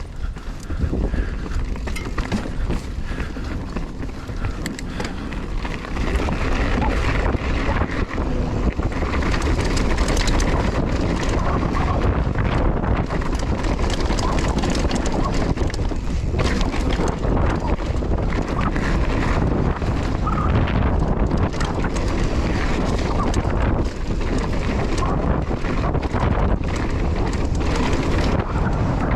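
Wind buffeting a GoPro Hero 9's microphone: a constant, heavy low rumble with crackling gusts, growing louder about six seconds in.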